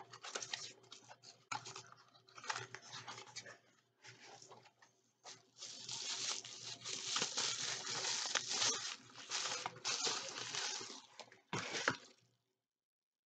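Cardboard and paper packaging rustling and crinkling with scattered taps and clicks as a small candle box is opened and the jar taken out. The rustling is densest in the second half and stops suddenly shortly before the end.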